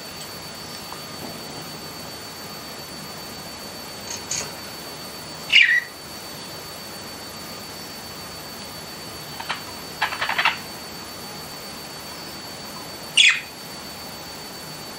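Pet budgerigars giving scattered short chirps and calls, two of the loudest sweeping downward in pitch, with gaps of a few seconds between them. A steady hiss and a thin, faint high whine run underneath.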